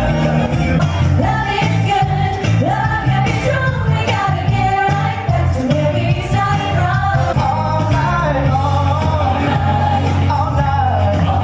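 Live Motown revue on stage: cast singing into microphones over amplified backing music with a steady bass line.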